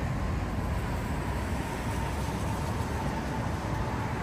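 Steady low rumble of city street traffic, with a faint high whine held throughout.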